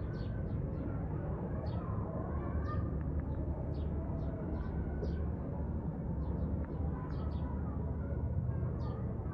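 Small birds chirping in short, high notes, many times in irregular clusters, over a steady low rumble of background noise.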